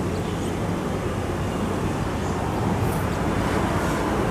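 Steady, low drone of a distant motor or traffic.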